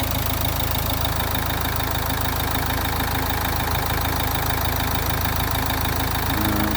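Nissan Juke engine idling steadily.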